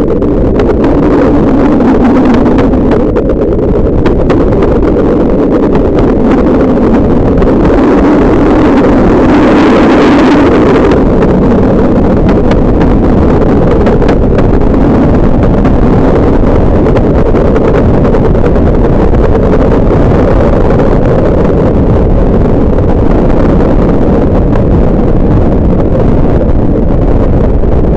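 Steam-hauled passenger train running at speed, heard from an open carriage window: a loud, steady rush of train noise and wind buffeting the microphone. The rush turns brighter for a couple of seconds about nine seconds in.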